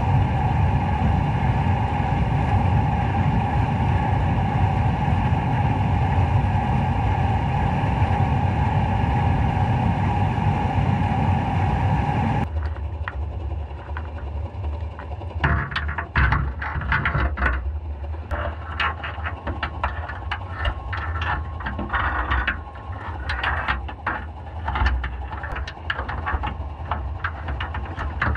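Loud passing train: a steady rumble and hum that cuts off abruptly about twelve seconds in. After that come muffled underwater crackling and scattered sharp clicks.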